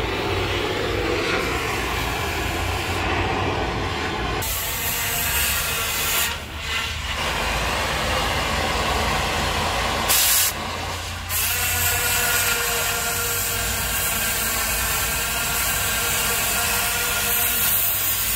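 Oxy-acetylene cutting torch running with a steady hiss as its flame and cutting-oxygen jet cut through a steel tube. The hiss shifts abruptly a few times, about 4, 6 and 10 seconds in.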